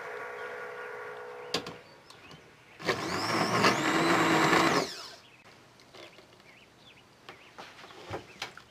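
Immersion blender puréeing cooked mandarins and sugar in a multicooker bowl. The motor runs for about two seconds, starting about three seconds in, with a whine rising as it spins up, then stops.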